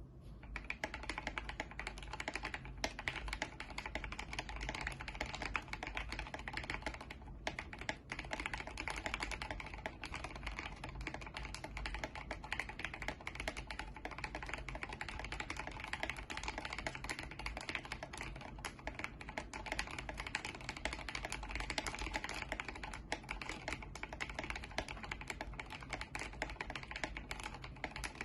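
Continuous fast typing on an Idobao ID67 mechanical keyboard with Gateron Milky Yellow linear switches: a dense run of deep keystroke clacks, briefly pausing a few times.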